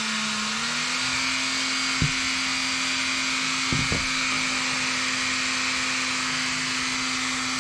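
Dremel rotary tool spinning a small soft-bristle wire brush at a steady high speed, scrubbing a little rust off the edge of a knife blade. Its hum steps up slightly in pitch about half a second in, with a few light clicks about two and four seconds in.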